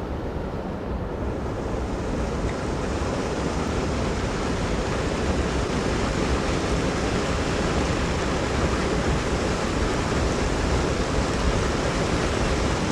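River water rushing at a dam: a steady, dense rush that grows a little louder over the first few seconds.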